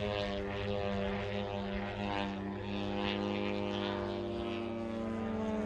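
Radio-controlled aerobatic model airplane flying overhead, its motor and propeller giving a steady buzzing drone of several pitched tones that wavers slightly in pitch as it manoeuvres.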